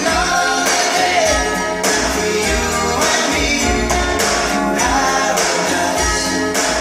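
A song with a lead vocal and a heavy, pulsing bass beat, played loud through Sony LBT-XB6 three-way tower speakers driven by a Sony MHC-GN88D main unit.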